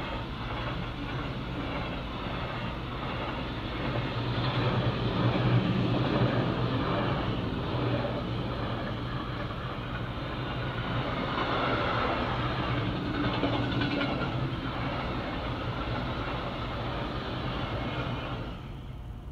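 Freight train passing close by at a level crossing, its car-transporter and goods wagons running steadily over the rails. The sound stops abruptly about eighteen seconds in as the last wagon clears.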